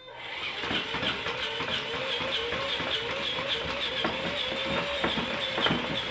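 Laser-cut baby-burping robot running after being switched on from its app: a small motor whine whose pitch wobbles in time with rapid repeated tapping, about three taps a second.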